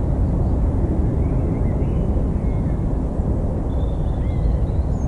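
Loud, steady outdoor rumble heavy in the low end, with faint short bird chirps above it.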